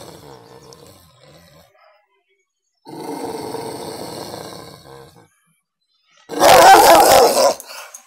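Rottweiler growling: a fading growl, then a long, steady low growl about three seconds in. Near the end comes a sudden, much louder, harsh burst of growling lasting about a second.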